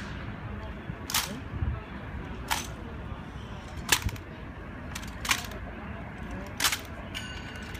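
Sharp clacks from honor guards' rifle drill: bayoneted rifles being slapped and handled, five evenly spaced strikes about 1.4 seconds apart.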